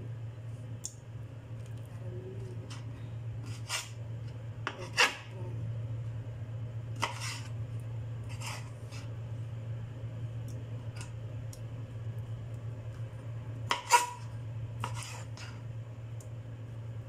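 Kitchen knife clicking and tapping on a wooden cutting board at irregular intervals while raw peeled shrimp are cut, with the loudest knocks about 5 seconds in and near 14 seconds in. A steady low hum runs underneath.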